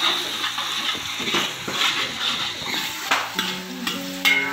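Sliced onions and whole spices sizzling in hot oil in a large metal pot while a steel ladle stirs and scrapes through them in repeated strokes, with a metal clink of ladle on pot near the end. The onions are being fried until translucent.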